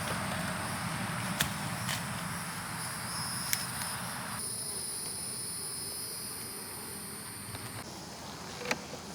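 Honeybees buzzing around an opened hive, a steady low hum, with a steady high insect trill above it and a few sharp clicks.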